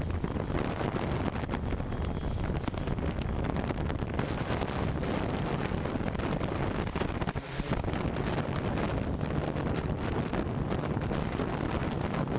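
Steady low rumble of construction machinery engines running, mixed with wind buffeting the microphone, with a thin steady high whine throughout.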